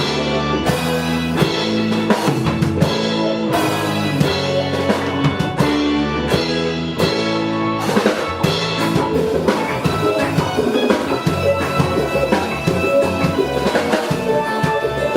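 Music played on a drum kit with sustained pitched instruments over it, the drum hits coming regularly.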